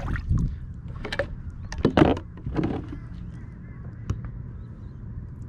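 A released fish splashing back into the water, then a few short pitched calls.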